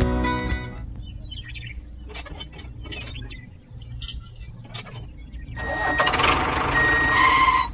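Light clicks and knocks of small wooden and plastic toy parts being handled. Near the end, a small motor starts up with a rising whir and a steady whine, then cuts off sharply.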